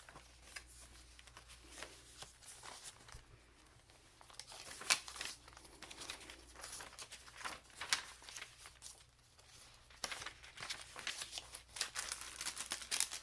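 Paper and cardstock pages, tags and tucks of a handmade junk journal rustling and crinkling as they are handled and turned, in short irregular bursts with one sharper crackle about five seconds in.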